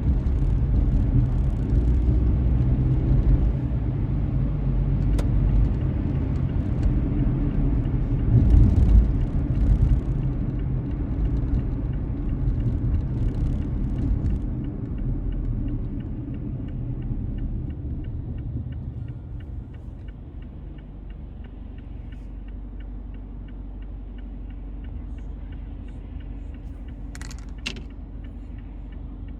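Car road noise: a steady low rumble of tyres and engine heard from inside the car, which quietens about two-thirds of the way through. A couple of short sharp clicks sound near the end.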